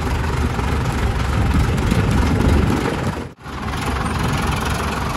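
Diesel tractor engine running steadily, a heavy low rumble, cutting out for an instant about three seconds in.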